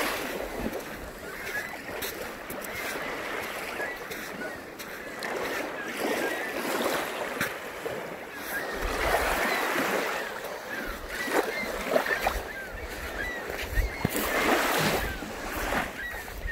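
Small waves lapping and washing up on a sandy Lake Huron shore, swelling and ebbing every few seconds, with wind buffeting the microphone.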